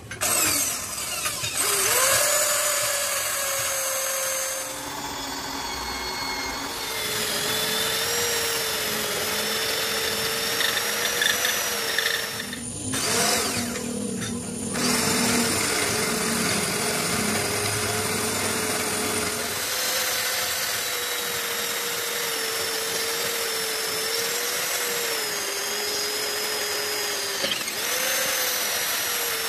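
Heavy handheld electric drill boring through a steel truck chassis rail, its motor whining steadily under load as the twist bit cuts into the metal. The whine wavers slightly in pitch and eases off briefly about halfway through.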